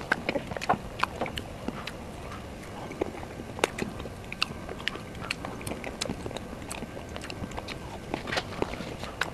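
Close-miked mouth sounds of a person eating soft mousse cake: wet lip smacks and chewing, with many short sharp clicks coming irregularly, several a second.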